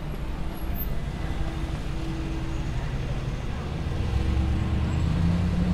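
Street traffic with a motor vehicle's engine running close by, its low engine note growing louder about four seconds in.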